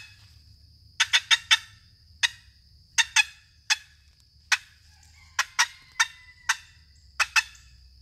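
Long box turkey call of mineralized green poplar with a walnut paddle, patted sharply to make turkey cutting: loud, abrupt clucks in irregular groups of one to four, in a 1-2, 1-1-2-1 kind of cadence.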